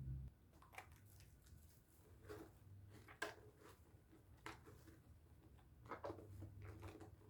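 Faint wet squishing and soft clicks of a pink Dove soap bar being lathered, coming in irregular bursts about every second or so.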